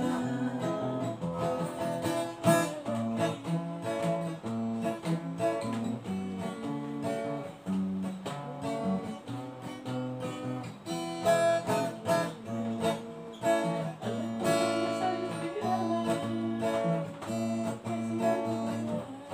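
Acoustic guitar being strummed, playing a song's chords in a steady rhythm.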